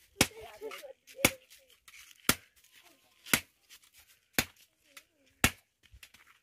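Iron hand hammer striking a metal blade on a stone anvil in a steady rhythm: six sharp, ringing blows, about one a second, as a knife is forged by hand.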